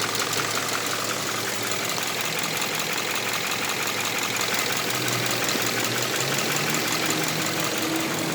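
Subaru Impreza's FB20 flat-four engine idling steadily with a rapid, even clicking from the cylinder heads on each side. The owner wonders whether it is valve clearance that needs adjusting.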